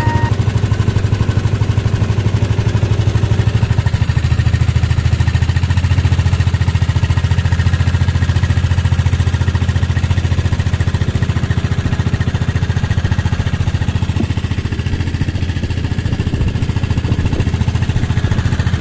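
Small fishing boat's engine running steadily, a loud, fast, even chug.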